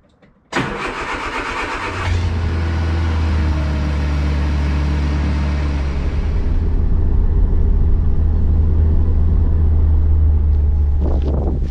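The rear-mounted four-cylinder engine of a Rootes Imp-family car comes in suddenly about half a second in, harsh and loud for a second or so, then runs on with a steady low drone as the car drives along.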